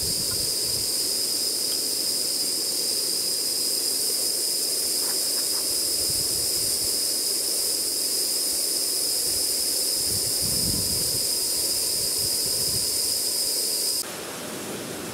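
Coal-fired Gauge 1 live-steam Royal Scot class model locomotive hissing steam: a loud, steady high hiss with a thin whistling tone in it, cutting off abruptly near the end.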